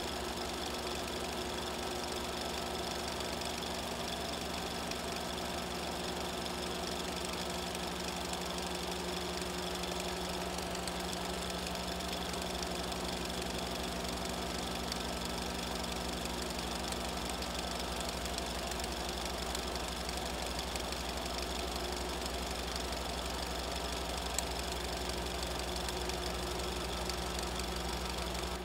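Film projector running steadily, an even mechanical whirr with a constant low hum.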